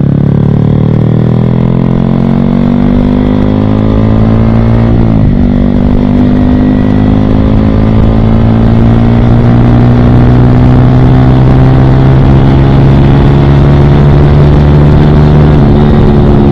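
Sport motorcycle with an aftermarket exhaust pulling away under acceleration: the engine note climbs steadily, drops once at an upshift about five seconds in, then climbs slowly again through the next gear.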